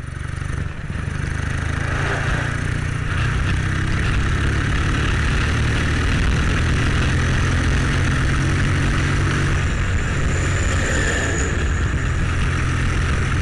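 Classic British motorcycle engine running steadily under way on the road, with wind and road noise over it.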